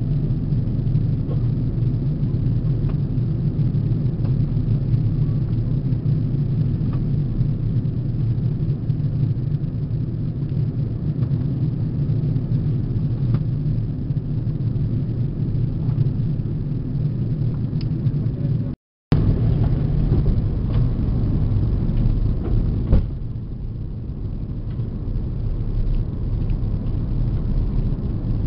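Steady low rumble of an Airbus A330-300's engines and airflow heard inside the cabin on the approach. The sound cuts out briefly about two-thirds of the way through, a single knock follows a few seconds later, and the rumble then runs a little quieter.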